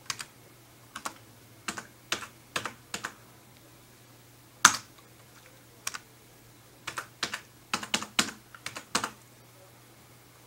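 Typing on a computer keyboard: irregular bursts of keystrokes, one louder key strike near the middle, stopping about nine seconds in. The keystrokes are the typing-in of a YouTube sign-in.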